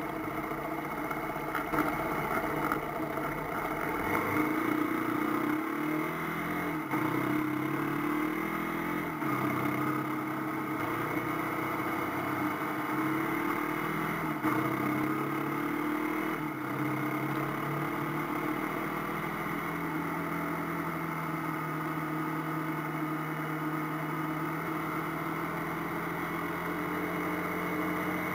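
AKT TT 250 Adventour motorcycle's single-cylinder engine under way. The engine note climbs and drops again and again through the gears, then holds a steady pitch at cruising speed for the last ten seconds or so.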